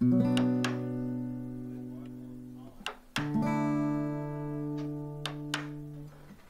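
Acoustic guitar music: a strummed chord rings out and fades, and a second chord is struck about three seconds in. Several sharp clicks of a hand chisel cutting into wood sound over it.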